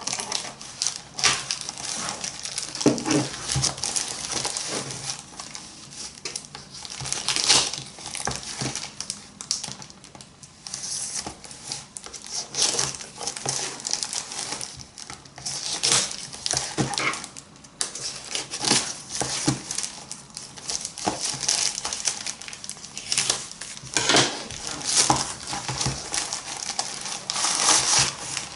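Packaging being handled and opened: plastic or paper crinkling and rustling in irregular bursts.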